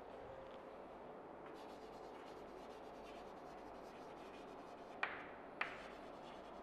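Chalk writing on a chalkboard: faint scratching strokes as words are written, with two sharper clicks about five seconds in, half a second apart.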